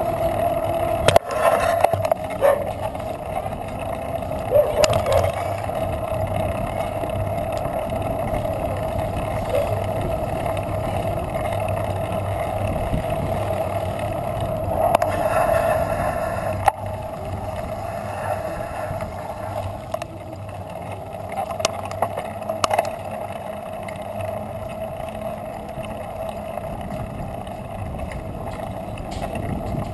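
Bicycle riding heard through a ride-mounted action camera: a steady, muffled rolling and wind rumble with a constant hum, and scattered sharp knocks from bumps in the road.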